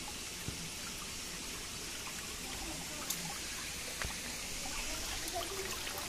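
Spring water dripping and trickling from a rock seep into a shallow pool and into cupped hands, a steady splashing hiss with a few sharp clicks.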